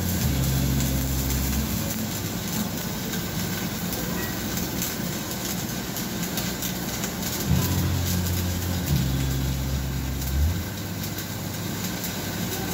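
Shielded metal arc (stick) welding arc crackling steadily as a 6011 electrode runs a root pass on pipe. A low steady hum sounds beneath it for the first second or two, and again for about three seconds starting near the middle.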